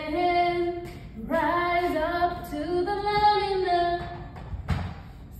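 Background song with a woman singing long, held notes. A single short knock near the end.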